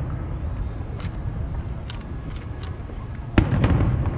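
Aerial fireworks shell bursting with one sharp bang a little over three seconds in, followed by a rumbling echo.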